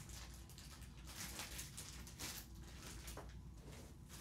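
Soft, irregular rustling and scuffing as items are handled and pulled from the pocket of a padded leather saxophone case.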